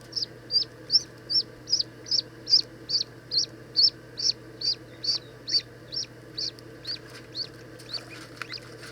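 Newly hatched ducklings peeping: a quick, regular run of short high peeps, about two or three a second, growing sparser near the end, over a faint steady low hum.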